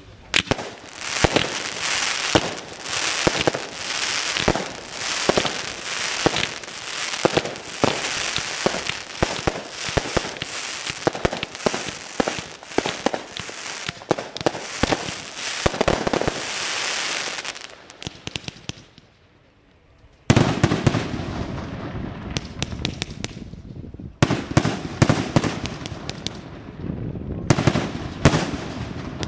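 Daytime fireworks batteries firing a dense, rapid string of shots and bangs. The firing dies away about 18 seconds in, leaving a brief near-silent pause, and about two seconds later another battery starts with a fresh run of rapid shots.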